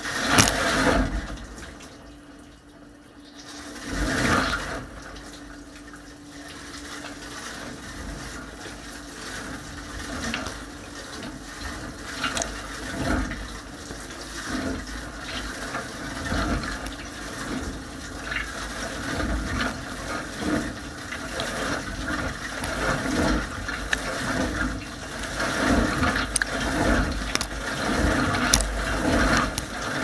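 Water from a Bosch dishwasher's spray arms splashing and drumming against the racks and tub walls mid-wash, heard from inside the machine, with a steady hum underneath. The spray surges at the start and again about four seconds in, then settles into a continuous pulsing wash that grows louder towards the end.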